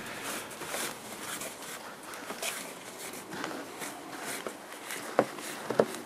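Footsteps in snow on a partly shovelled path: a toddler's irregular steps, with two sharper knocks near the end.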